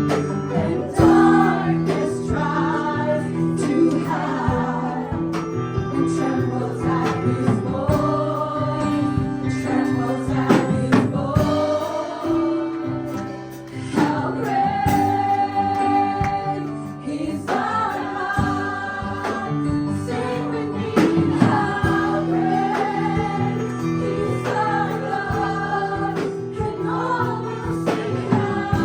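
Live worship music: a group of singers in choir-like unison over instrumental accompaniment with a steady beat, singing a praise song.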